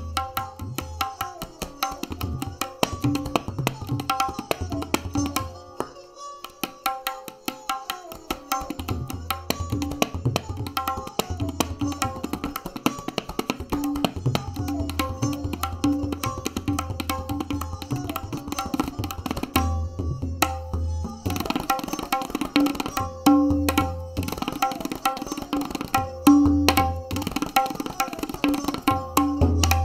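Tabla solo: a gat played in fast, dense strokes on the dayan, with deep resonant bass strokes on the bayan, over a repeating melodic accompaniment.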